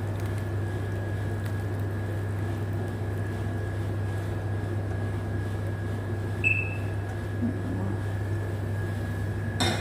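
A steady mechanical hum with a thin, steady high whine over it. A short high chirp sounds about two-thirds of the way through, and a click comes near the end.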